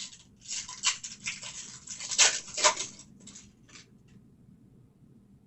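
Foil wrapper of a Mosaic football card pack crinkling and tearing open, with cards handled, in a series of rustling bursts loudest a little past the middle, then stopping about four seconds in.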